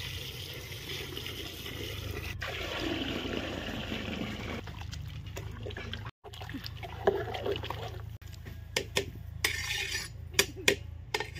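Water being poured into a large cooking pot, a steady splashing pour for about six seconds. After a brief break, several sharp separate clanks of pots and utensils follow.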